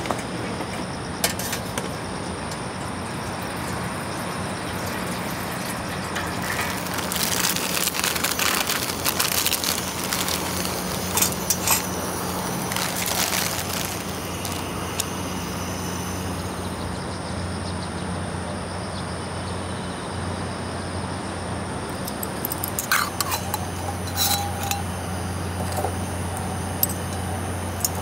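Steady low hum of a vehicle on the move, heard from inside, with small clinks and rattles coming and going over it.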